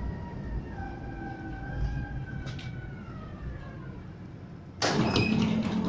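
Electric tram running and slowing, its motor whine sliding slowly down in pitch over a steady rumble, then a sudden loud burst of noise near the end as the folding doors open.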